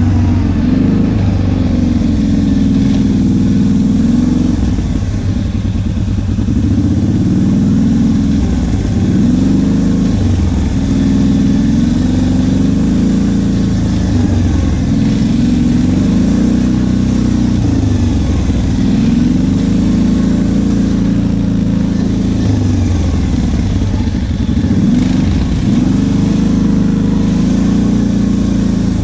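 ATV engine running under load while being ridden, its pitch repeatedly rising and falling every couple of seconds as the throttle is worked, with a steady rushing noise over it.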